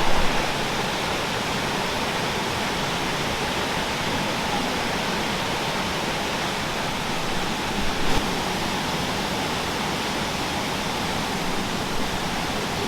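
Blackwater Falls, a 57-foot cascade, giving a steady rush of falling water.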